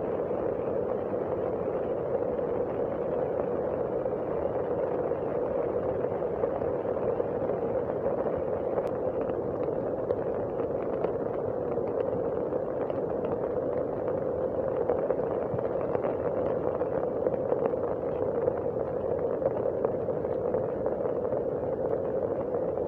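Heavy rain falling steadily on leaves and foliage: a dense, even hiss with scattered sharper drop hits.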